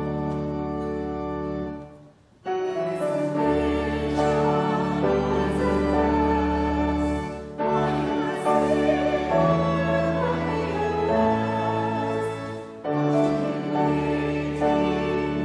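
Church music: sustained keyboard chords over a held bass, with singing. It goes in phrases, with a brief near-silent break about two seconds in and shorter dips later.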